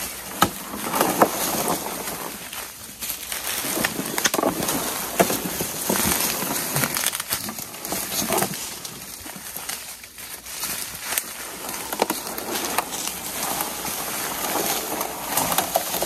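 Footsteps and rustling through dry leaf litter and brush, with irregular crunching and crackling.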